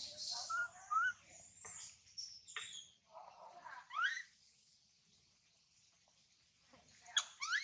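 Infant long-tailed macaque crying in short, high-pitched squeals that rise in pitch, coming in a few bursts with a quiet gap of a couple of seconds in the middle, the last burst near the end.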